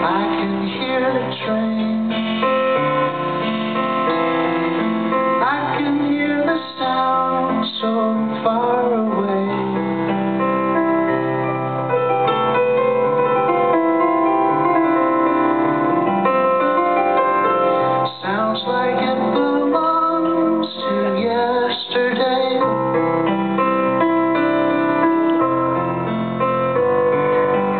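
Live band music near the end of a song: a keyboard-led passage over electric bass, playing at a steady level.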